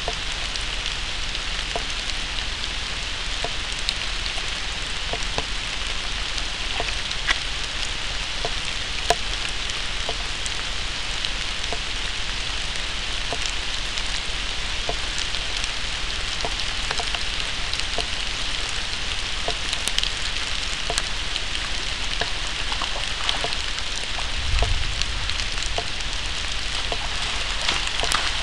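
Heavy rain in a cloudburst: a steady hiss of falling rain with many separate drops ticking close by, and one brief low thump about three-quarters of the way through.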